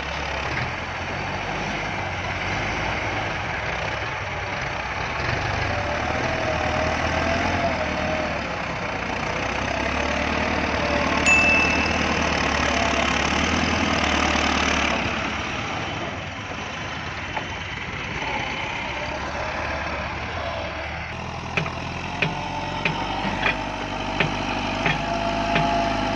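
Massey Ferguson 385 tractor's diesel engine running steadily with a slowly wavering pitch. There is a brief high ding about halfway through, and a run of sharp clicks or knocks near the end.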